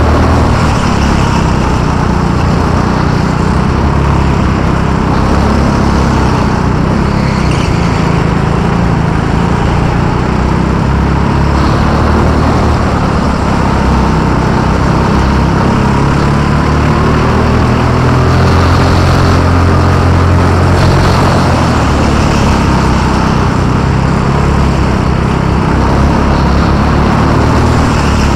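A go-kart's small petrol engine running hard, heard from on board the kart. Its pitch rises and falls as it accelerates and lifts through the corners.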